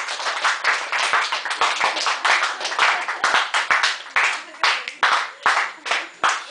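A small audience applauding by hand, dense clapping that thins out to a few separate claps in the last couple of seconds.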